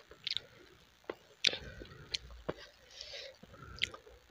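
Close-miked chewing of a mouthful of rice and curry, with sharp wet mouth smacks and clicks about six times.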